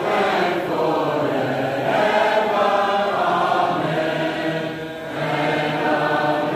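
A large group of men's and women's voices singing together, holding long notes, with a short break between phrases about five seconds in.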